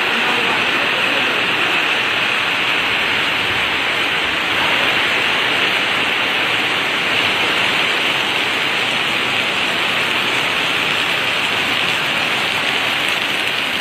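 Torrential rain pouring down steadily in a storm, a dense, even hiss of rain on the ground and roofs.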